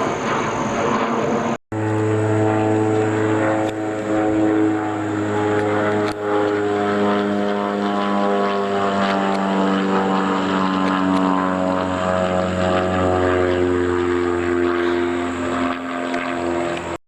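Propeller airplane engine droning as the plane passes, its steady pitch slowly falling. There is a brief dropout about two seconds in.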